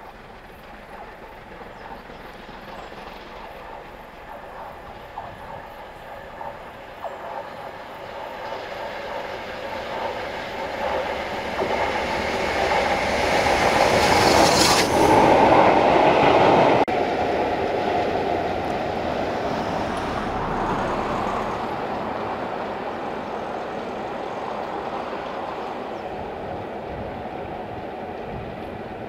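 A train passing close by, its wheels clattering over the rail joints with some wheel squeal. The sound builds to its loudest about halfway through, drops abruptly shortly after, and goes on as a steadier running rumble.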